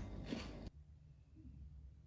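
Background music cuts off suddenly under a second in, leaving a faint low hum.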